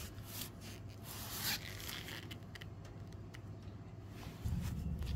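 Gloved hands handling and scraping the outer wheel bearing and tools at a van's rear hub: irregular scuffs, rubs and light clicks, with a longer scrape about a second and a half in. A louder low sound comes in near the end.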